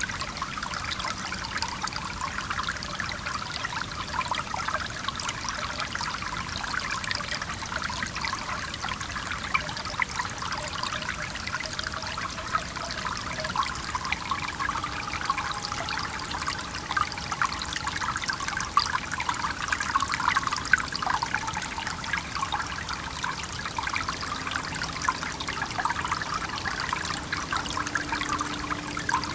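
Shallow stream babbling and trickling steadily over rocks, a dense, continuous patter of small splashes.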